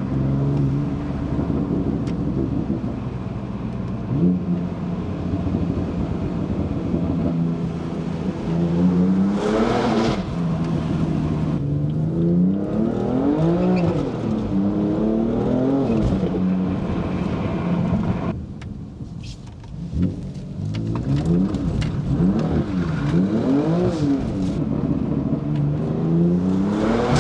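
Stage 2 tuned BMW F80 M3's twin-turbo inline-six running at a steady cruise, then revving up and back down several times as the car accelerates. About two-thirds of the way in it goes quieter for a couple of seconds, then revs climb and fall again.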